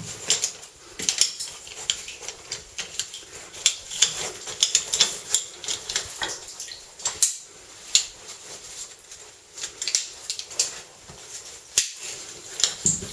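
Caving gear being handled at a rope anchor: metal carabiners clinking and clicking irregularly, with scraping and rustling of rope, harness and suit against rock.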